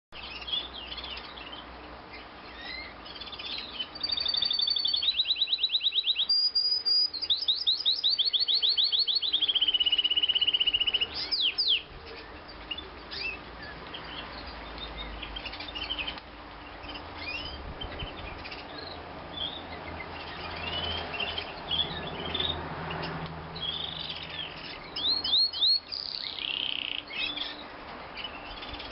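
Male white song canary singing: runs of fast, evenly repeated high trill notes held for a second or two each, loudest in the first part, then softer scattered chirps and twitters.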